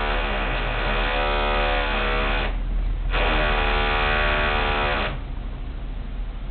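Construction power tool on apartment repair work whining in two spells, about two and a half seconds and then two seconds with a short break, its pitch dipping and recovering as it takes load, over a steady low machinery rumble.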